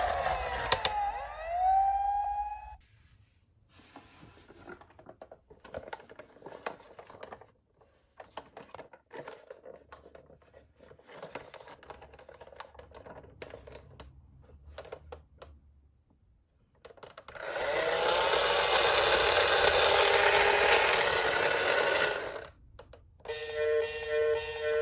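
A toy police car's electronic siren winds down over the first two or three seconds, then faint scattered clicks and rattles of the toy being handled. About seventeen seconds in, a loud steady rushing, rattling noise runs for about five seconds, and a short music jingle starts near the end.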